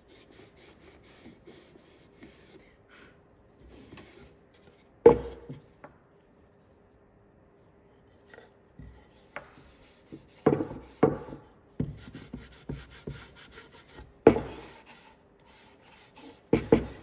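Cloth rag rubbing oil-based stain into bare wood, in soft scrubbing strokes. A sharp knock about five seconds in and a series of louder knocks in the second half, as the wood pieces are handled against the table.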